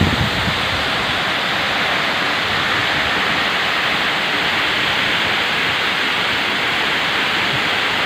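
Tall waterfall cascading down a rock face, its falling water making a loud, steady, even rush that holds at one level throughout.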